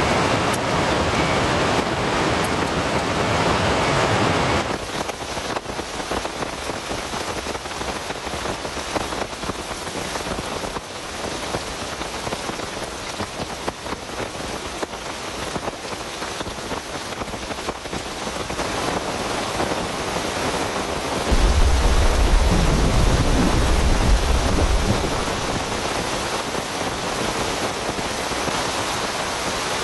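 Heavy rain falling steadily, louder for the first few seconds. A low rumble of thunder comes about three-quarters of the way through.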